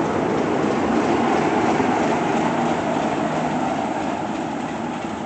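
A train running along the track, loudest about a second or two in and then slowly fading.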